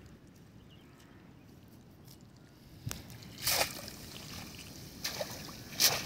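Water splashing as a cast net is hauled in and handled at a river's edge. The first half is faint; then come a few short splashes, the last one near the end the loudest.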